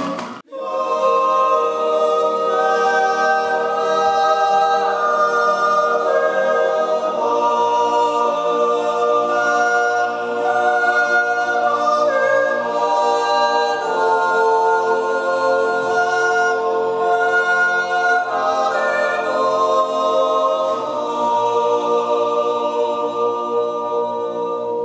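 Men's choir singing a cappella in long held, slowly shifting chords, in the manner of Swiss wordless natural yodel (Naturjodel).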